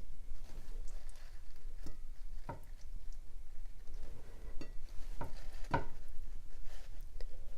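A serving plate being wiped clean with paper towels: faint rubbing with half a dozen light, irregular taps and knocks against the plate.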